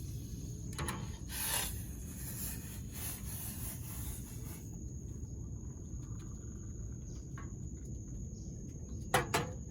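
A few scrapes and knocks of a cup and spoon being handled while making coffee, with the loudest knocks near the end, over a steady low rumble. A thin, high, steady tone comes in about halfway.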